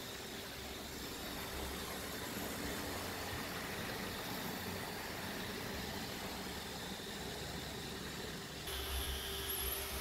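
iRobot Roomba robot vacuum running under a couch: a steady motor whir with brush and suction noise, growing louder and brighter about nine seconds in.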